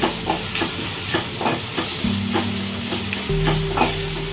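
Wooden spatula stirring and scraping onion-tomato masala around a nonstick wok, about three strokes a second, over the sizzle of frying as Kashmiri chilli powder is mixed in.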